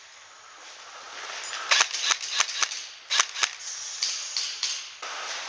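Airsoft replica firing a quick string of about ten single shots, beginning a little under two seconds in and ending near the end.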